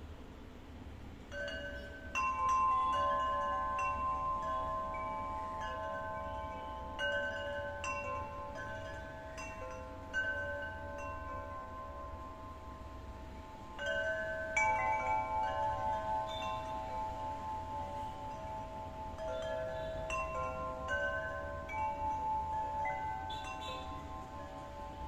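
Large tubular wind chime with long dark metal tubes, its wooden striker knocking the tubes. From about a second in it rings in repeated clusters of strikes, each leaving long, overlapping tones that ring on over a low steady rumble.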